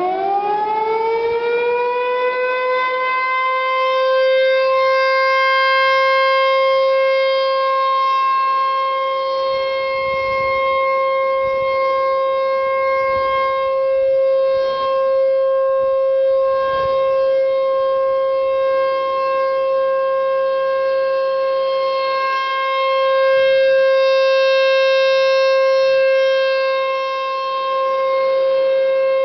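American Signal T135 AC/DC rotating outdoor warning siren winding up. Its pitch rises over the first few seconds, then it holds the steady Alert tone, swelling slightly as the horn turns.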